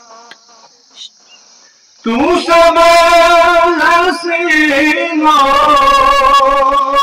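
A man singing a naat, an Urdu devotional poem, solo without accompaniment. After a pause of about two seconds he begins a long, wavering, held melodic line.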